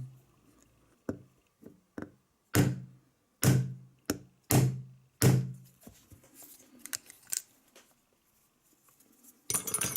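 Four heavy knocks about a second apart, with lighter clicks and taps around them: the seized nitro engine being knocked and worked to free its stuck cylinder sleeve and piston.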